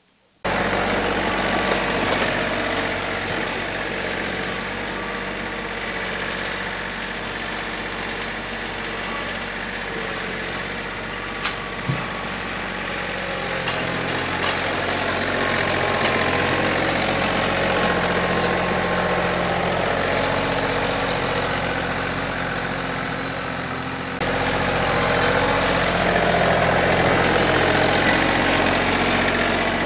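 John Deere compact tractor's diesel engine running steadily while it carries saw logs on its front loader forks. It gets a step louder about three-quarters of the way through, with a couple of faint knocks about halfway.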